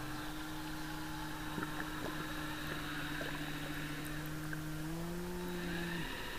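Electric motor inside an RC model submarine running underwater with a steady whine, stepping up slightly in pitch about five seconds in and stopping about a second later.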